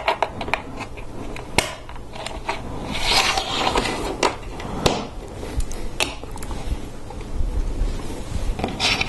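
Hard plastic LEGO Technic parts being handled and pressed together: several sharp clicks as bushings and a curved thin lift arm are fitted, with a brief rustle of loose pieces about three seconds in and again near the end.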